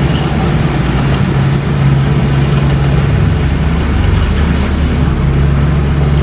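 Bulldozer's diesel engine running steadily; its note drops lower for about a second and a half near the middle, then comes back up.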